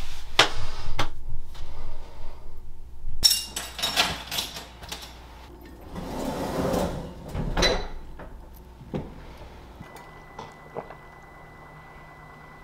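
Household handling noises: a series of knocks and clatter, like doors, drawers or cupboards being opened and shut, with two longer rustling, scraping stretches. From about ten seconds in, a steady low hum with a thin high whine takes over.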